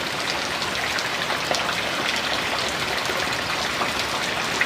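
Steady rain falling, with single drops striking close to the microphone now and then.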